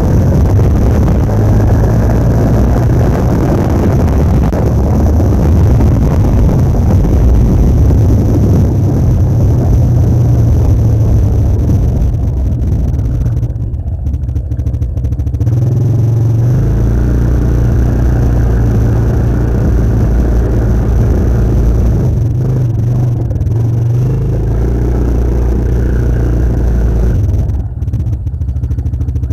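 Motor vehicle engine running while under way, heard from aboard: a steady low drone whose pitch steps up and down several times with the throttle, easing off briefly about fourteen seconds in and again near the end.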